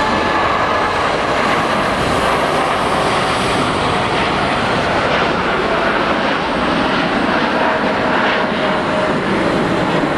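Boeing 747-8 freighter's four GEnx turbofans at takeoff thrust as it rotates and climbs out: a steady, loud rush of jet noise. A faint whine within it slides slightly lower midway through.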